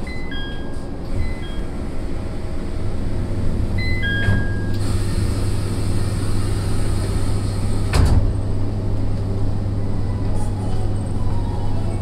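Two-note door chime of an SAT721 series electric train, sounding a few times over the steady hum of the car, with a single sharp thump about eight seconds in.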